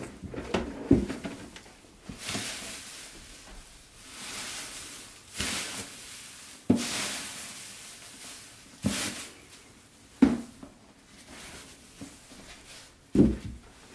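Plastic shredder bin and cutting head being handled, with several sharp plastic knocks and swells of rustling from the cross-cut paper shreds shifting inside the bin as it is tilted.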